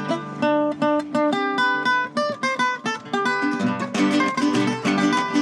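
Acoustic string ensemble playing without voice or guacharaca: a quick picked melody over strummed chords, with a fuller strummed accompaniment joining about three and a half seconds in.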